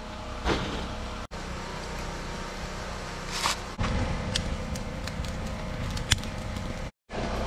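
Steady outdoor rumble, then from about four seconds in a fire of scrap pine lumber burning in a campsite fire-ring grate, with a few sharp crackles.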